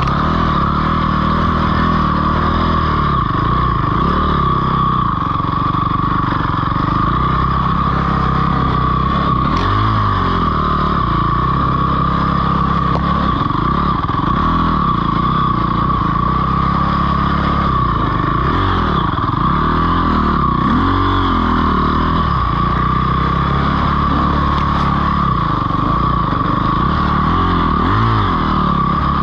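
Dirt bike engine being ridden on a trail, its pitch rising and falling over and over as the throttle is opened and closed, with a steady high whine throughout.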